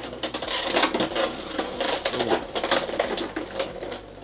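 Beyblade X tops clashing in the plastic stadium: rapid clicking and clattering of hits and scraping, easing off toward the end. The fast clash ends in a burst, one top knocked apart.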